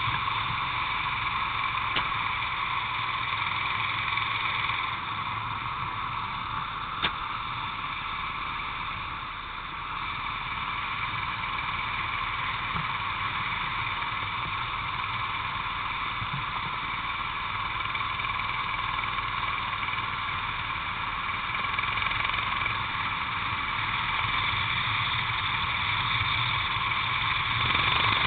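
Onboard sound of a racing kart's engine running at high revs through laps, a steady high engine note that eases off slightly about ten seconds in and builds again near the end. Two sharp clicks cut through, about two and seven seconds in.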